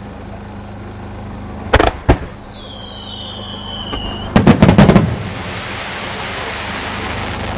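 Fireworks display: two sharp bursts about two seconds in, then a falling whistle from a whistling shell, then a rapid cluster of loud bangs around four and a half seconds. The bangs trail into a steady hiss.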